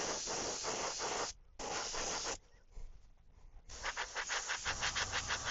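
Airbrush spraying paint with a steady hiss that stops, gives one short burst and stops again. It then returns as rapid pulses, about five a second, as the trigger is worked. A low hum comes in partway through the pulsing.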